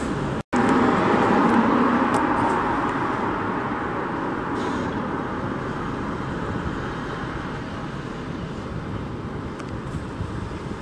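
Road traffic noise: a steady rush that is loudest just after a brief dropout about half a second in, then slowly fades.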